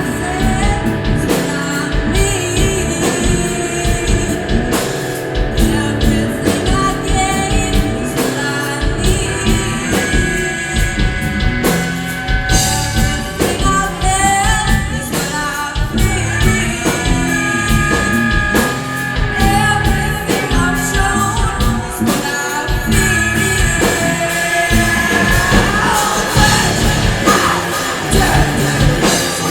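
Rock band playing with drum kit, guitar and singing.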